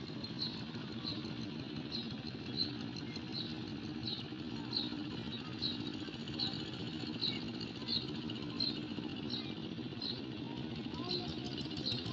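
Steady low engine hum in the background, with a short high chirp repeating evenly about every three-quarters of a second.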